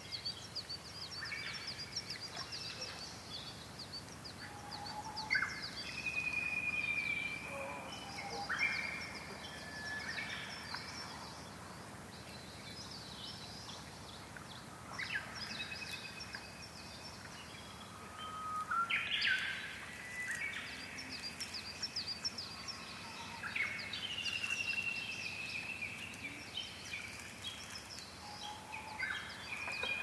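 Several wild birds singing at once: a fast run of high chirps goes on throughout, with clear whistled notes and short trills coming and going, loudest about a quarter of the way in and again in the second half. Beneath them is a soft wash of small waves lapping on a pebble lakeshore.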